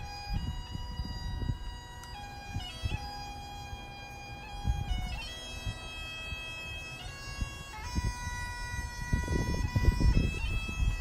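Bagpipes playing a slow melody of long held notes that step from pitch to pitch over a steady drone, with a low gusty rumble that grows louder near the end.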